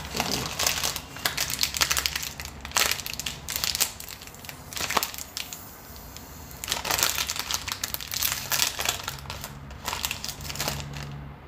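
Crinkling and crackling of a plastic snack pouch of freeze-dried apple crisps being handled and opened, in bursts with a short pause about halfway through.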